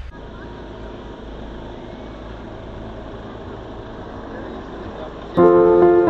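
Steady street background noise with traffic. Background piano music comes in loudly near the end.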